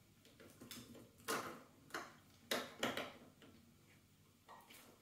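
Small metal clicks and taps of a tool and parts against an airsoft gearbox shell as a spring is worked onto its peg: a run of sharp clicks over the first three seconds, then one more near the end.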